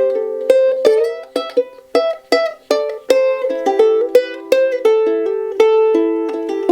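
Soprano ukulele with an Adirondack spruce top and figured Tasmanian blackwood back and sides, tuned to high G, played as an improvised run of plucked notes and small chords. The notes are let ring into one another, with added reverb.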